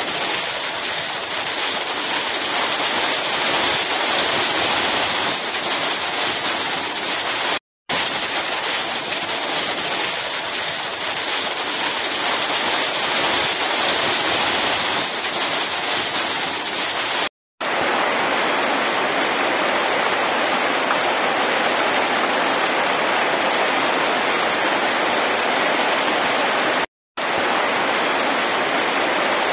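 Heavy rain pouring down in a steady, dense hiss, with three brief dropouts to silence.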